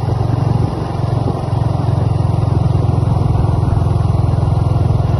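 Motorcycle engine running steadily as the bike rides along, heard from the rider's seat. It eases off slightly about a second in, then holds an even note.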